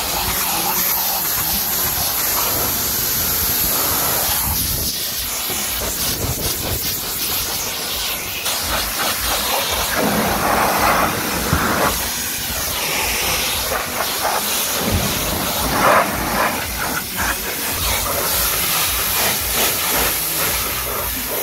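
High-pressure water jet from a pressure-washer lance hissing against a car's door and body panels, its sound swelling and dipping as the jet is swept across different surfaces.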